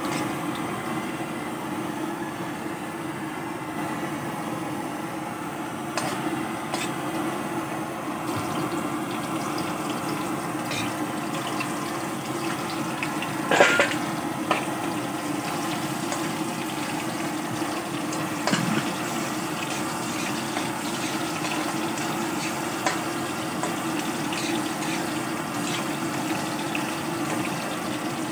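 Garlic, ginger and onion sizzling in oil in a steel wok over a gas burner, a steady hiss throughout. A metal spatula clinks and scrapes against the wok now and then, with one louder clank about halfway through.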